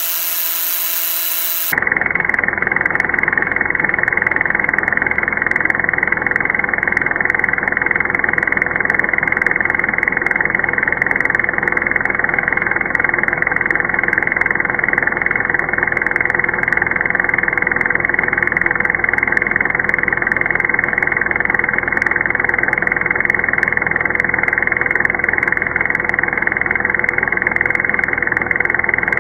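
Power drill running steadily, spinning a number-wheel counter clamped in its chuck. About two seconds in the sound slows down into slow motion: the whine gives way to a deeper, muffled, steady drone.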